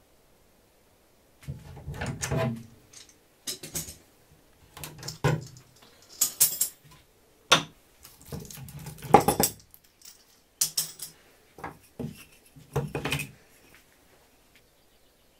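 Steel bar clamps being loosened and taken off a glued wooden workpiece: metal clinking and rattling of the sliding jaws and bars with knocks of wood, in about ten short bursts.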